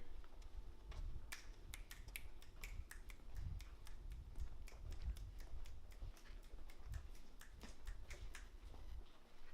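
A run of light, irregular clicks, several a second, over a low rumble of handling noise.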